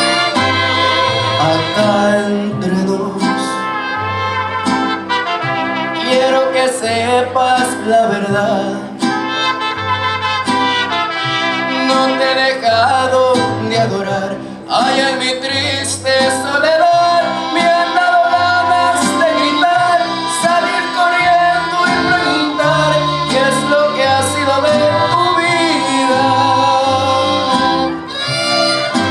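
Mariachi band playing live, with violins, trumpets and guitars over a pulsing bass, accompanying a man singing a ranchera into a microphone.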